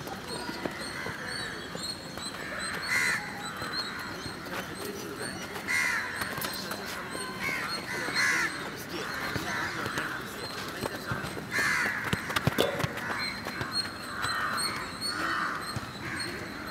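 Crows cawing repeatedly, in short harsh calls a second or a few seconds apart. About twelve seconds in there is a cluster of sharp knocks of footballs being kicked, the loudest moment.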